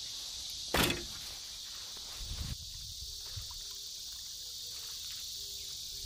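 A van's sliding side door is slammed shut: one loud bang a little under a second in, over a steady high hiss.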